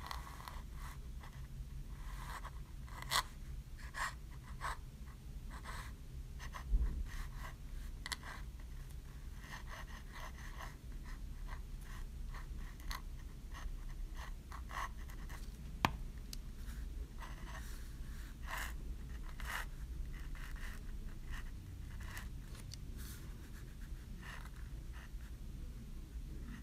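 Steel dip-pen nib scratching across paper in many short, irregular strokes, over a faint low hum.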